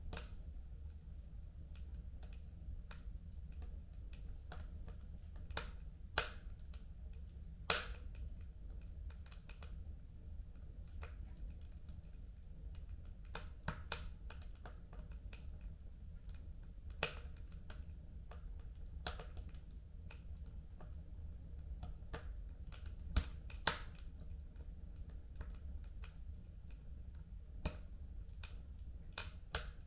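Wood fire crackling in a home fireplace: irregular sharp pops and snaps, a few louder ones about eight seconds in and around twenty-three seconds, over a low steady rumble.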